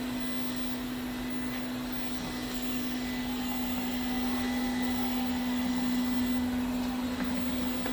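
Ziglint robot vacuum cleaner running, a steady hum on one pitch over the hiss of its suction.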